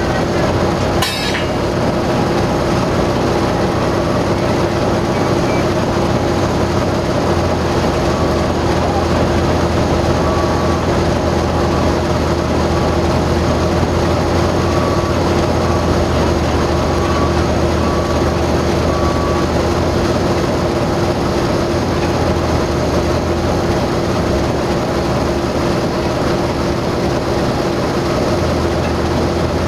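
Heavy diesel machinery running steadily, with a constant droning engine note. A single sharp knock comes about a second in.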